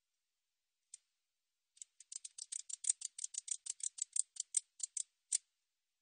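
Katydid (베짱이붙이) stridulating: a single tick about a second in, then a run of about twenty sharp, high ticks at five or six a second that stops shortly before the end.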